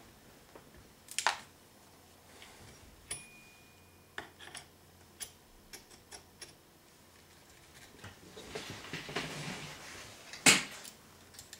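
Scattered metal clicks and taps as an AKARS rail mount is pressed down against the sight-block springs of an AK-pattern rifle and its retaining pin is worked through, with a rustling scrape about eight seconds in and a sharp knock near the end.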